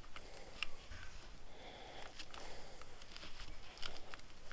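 Hands rolling a tight, stretchy rubber grip cover onto a motorcycle handlebar grip: rubbing with scattered small clicks and scrapes.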